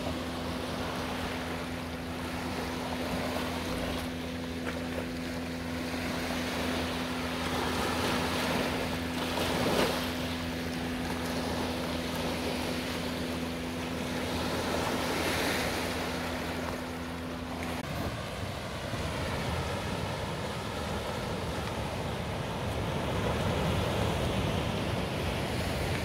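Sea waves washing and breaking on the shore, swelling a few times. Under them runs a steady low hum that stops suddenly about two-thirds of the way through.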